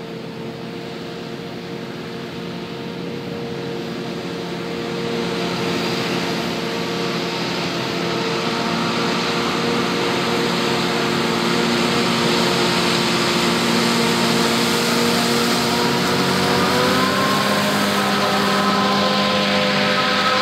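John Deere 8600i forage harvester and a tractor running together under harvesting load, a steady engine hum that grows louder as the machines come closer. About 17 seconds in the engine note rises as the harvester revs up.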